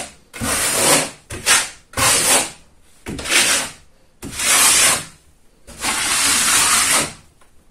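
Steel plastering trowel scraping gypsum plaster across a drywall wall in about six sweeps, the last one the longest. The plaster is laid on thin and scraped down as it goes.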